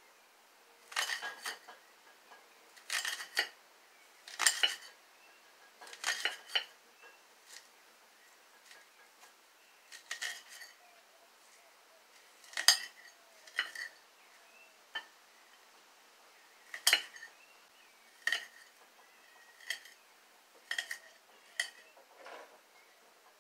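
A kitchen knife slicing onions on a ceramic plate: short clinks of the blade striking the plate every second or two, often in quick pairs.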